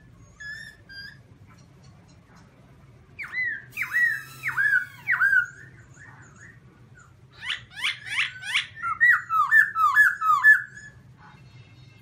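Black-throated laughingthrush singing loudly: a few soft notes, then a phrase of about five ringing down-slurred whistles a few seconds in, and in the second half a longer, faster run of whistled notes.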